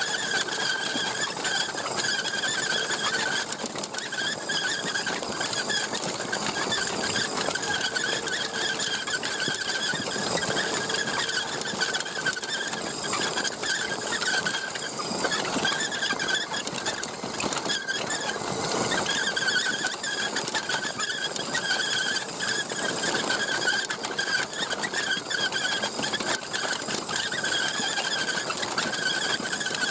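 Steady, slightly wavering whine of an Axial SCX10 radio-controlled truck's electric motor and gears, heard close up from on board, over the rough rustle of its tyres on dirt.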